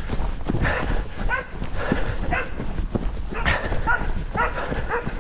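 A part-Basenji dog barking and yelping in short, high calls, about two a second, in the excited chase barking it gives when after a deer.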